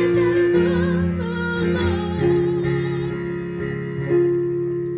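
Closing bars of a pop song: sustained chords, with a wordless wavering vocal run in the first couple of seconds.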